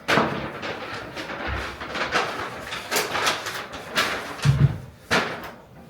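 Rustling and crackling from handling things at a meal table, with two low thumps, about one and a half and four and a half seconds in.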